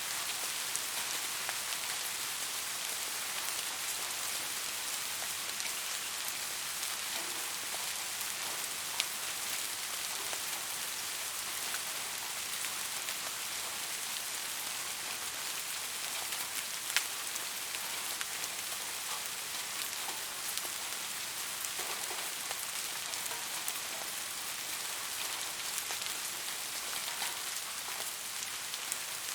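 Steady soft rain: an even hiss of rainfall with scattered distinct drops ticking onto a surface, a couple of them sharper and louder.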